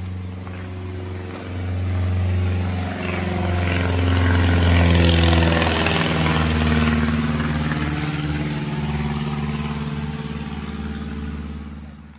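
Single-engine propeller floatplane flying low overhead, its engine drone swelling to a peak about five seconds in, then dropping in pitch and fading as it passes away.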